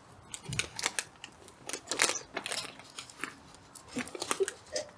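Hardwood firewood burning in a campfire, crackling and popping in quick, irregular sharp snaps.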